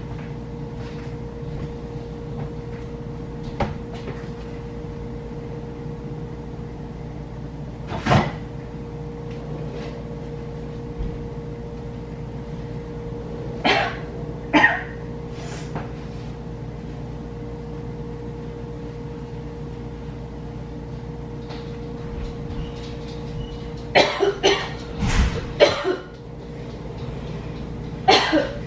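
A person coughing several times near the end, over a steady low hum, with a few scattered knocks and clatters earlier.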